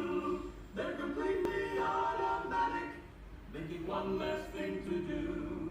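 Music with voices singing held chords, the notes changing every second or so.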